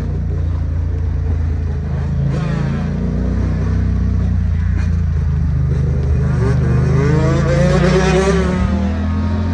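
Two-stroke dirt bike engine revving close by, its pitch climbing steadily from about six and a half to eight and a half seconds in, over the steady low drone of another engine running.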